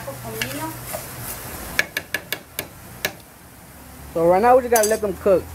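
A few sharp clicks between about two and three seconds in, then a loud voice calling out near the end.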